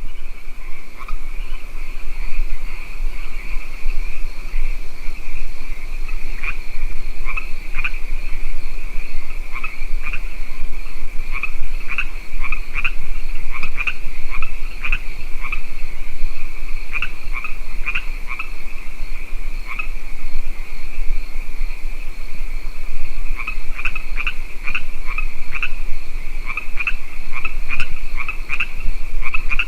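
A chorus of frogs croaking at a lake: many short calls come in quick overlapping runs over a steady high trill.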